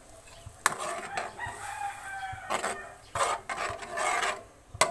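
Metal spoon scraping and stirring ground pork in sauce around an aluminium wok, in several rough scrapes with a sharp clink of spoon on pan about a second in and again near the end.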